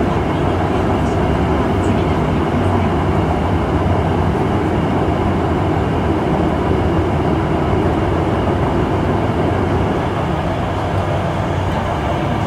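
Onboard running noise of an Osaka Metro 66 series subway car (Toshiba IGBT inverter) travelling through a tunnel: a steady, loud rumble of wheels on rail that eases slightly near the end.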